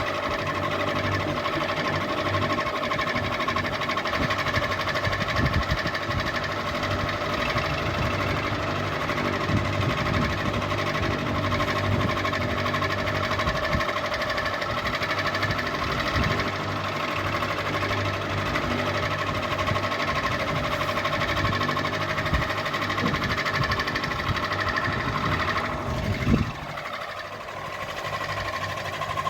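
Ceiling fan running: a steady motor hum over a fast, uneven mechanical clatter. Near the end a single thump, after which the low rattle briefly falls away.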